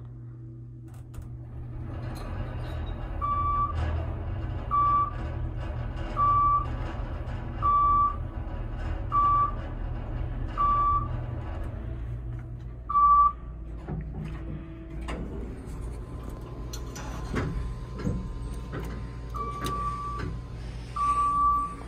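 Ride noise of a 1999 Northern traction passenger elevator travelling up: a steady low hum that grows louder a couple of seconds in. Over it a short electronic beep repeats about every second and a half. After about twelve seconds the hum drops, and a few knocks and two more beeps follow near the end.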